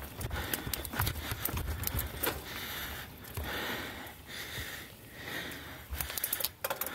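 Specialized Stumpjumper mountain bike riding over rocks and dirt singletrack: tyres crunching and the bike rattling with irregular thumps and clicks over bumps. The rider is breathing hard, a rasp that rises and falls about every second.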